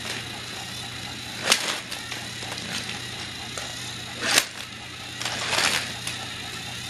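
Toy trains on a toy track: a few short plastic clatters over a steady low hum, the loudest about four seconds in.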